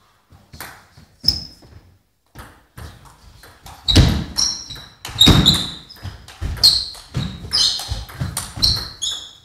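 Table tennis ball: a few scattered taps, one of them ringing out briefly, then from about four seconds in a rally of the ball clicking off bats and the table in quick succession, with low thuds among the hits.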